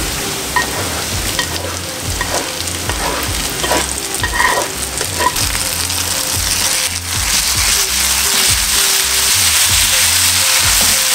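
Sliced onions and reduced gravy sizzling in a frying pan as the gravy is poured in and stirred through with a spatula, with scattered clacks of the spatula against the pan. The sizzle grows louder and brighter a little past halfway.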